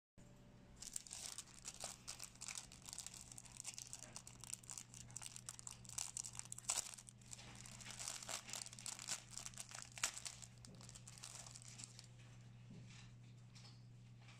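Clear plastic packaging bag crinkling as hands open it and pull a folded mask out: many quick crackles that die down about twelve seconds in, over a steady low hum.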